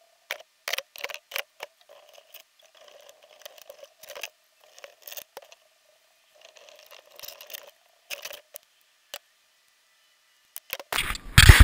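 Scattered sharp clicks and light knocks of fishing gear being handled on a plastic kayak, with soft rustling between them. Near the end come loud rubbing and knocking as the kayak-mounted action camera itself is handled.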